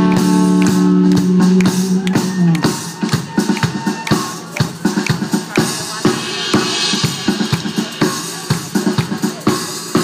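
A live band holds a chord that cuts off about two and a half seconds in. The drum kit then carries on alone in a steady groove of kick drum, snare and rimshots.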